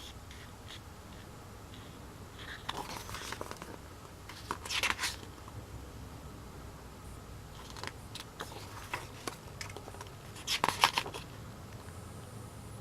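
Handling of a paper album and its photobook: scattered light clicks and paper rustles, with two louder rustles, about five seconds in and again near eleven seconds, as pages are turned.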